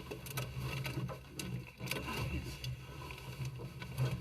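Hands working tape onto a gas furnace's sheet-metal joint to seal it against air leaks: irregular clicks, taps and rustles.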